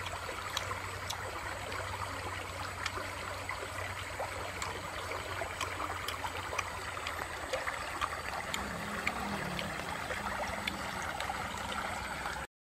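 Shallow river running over stones, a steady babbling with faint scattered ticks; it cuts off abruptly near the end.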